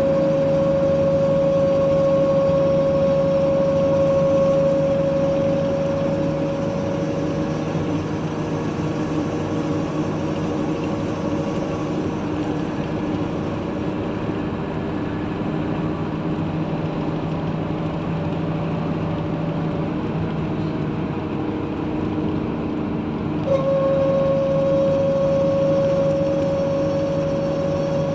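Steady mechanical hum with a constant pitch, like an engine idling. The main tone fades away about a quarter of the way in and comes back suddenly with a click near the end.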